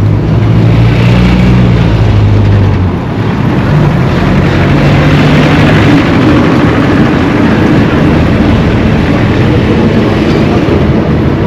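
Motor vehicle engines running close by with steady road noise; a low engine hum is strongest in the first three seconds and again around five seconds in.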